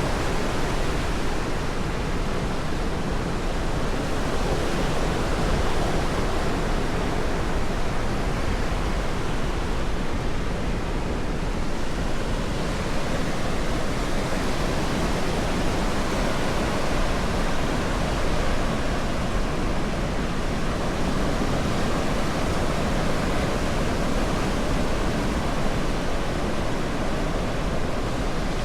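Ocean surf washing and breaking on a sandy beach: a steady, unbroken rush of noise.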